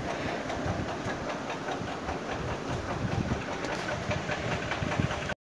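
Water boiling in a steamer pot, a steady bubbling hiss full of rapid small pops, cutting off abruptly near the end.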